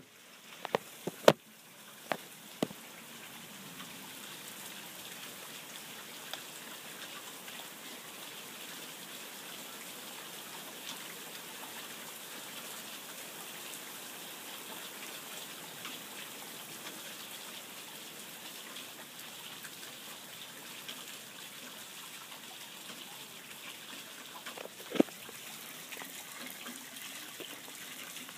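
Hail and rain falling steadily, a continuous hiss dotted with faint ticks of stones striking. A few sharp knocks sound in the first couple of seconds and one more near the end.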